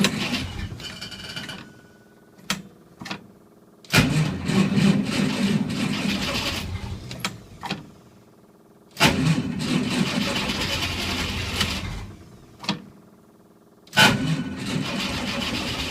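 A Willys's 6-volt starter cranking the cold engine in four bursts of a few seconds each, with short pauses and a few sharp clicks between them. The engine does not catch: a cold start at −8°F on a weak 6-volt system, with full choke.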